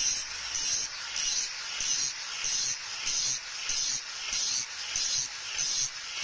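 Angle grinder with a wire wheel scrubbing forge scale off a steel kukri blade, a steady high rasping hiss that swells and dips about every two-thirds of a second.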